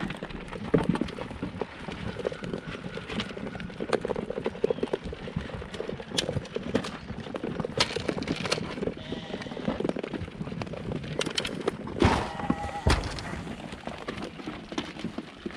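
Goat kids eating whole corn and soybeans at feed tubs: a dense run of crunching and small knocks, with hooves shuffling and stepping on the dirt among the herd. The loudest moment comes about twelve seconds in.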